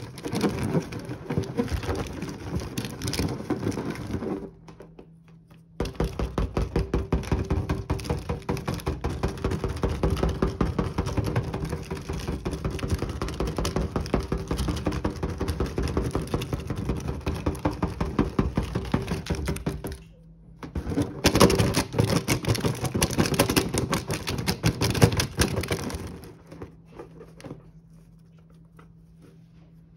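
A small wooden mallet tapping rapidly on a taut rubber balloon filled with candy, several dull taps a second, in two long runs with a brief pause about 20 seconds in. Before the first run, fingers press and rub the balloon's rubber. Near the end there are only faint handling clicks as the ribbon is worked off the balloon's neck.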